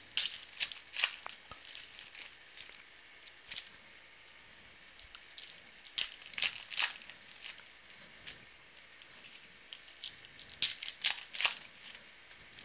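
Trading-card pack wrappers crinkling and tearing as packs are opened and handled. There are short bursts of rustling near the start, about six seconds in, and again near the end.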